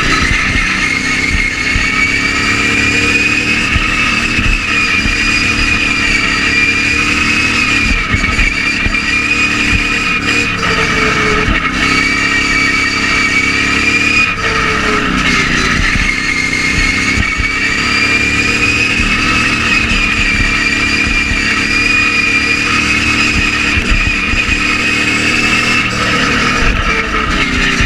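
Racing ride-on lawn mower's engine running hard at high revs, heard from on board the mower. Its pitch sags and picks up again a few times as the throttle is eased and reapplied.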